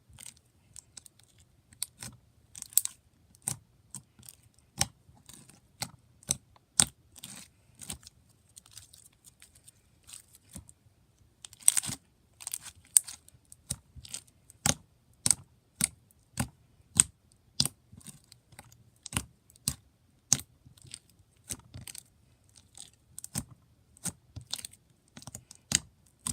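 Spreadable slime with medium-sized foam beads being squished and poked by hand, giving sharp, irregular clicks and crunchy pops, one to three a second.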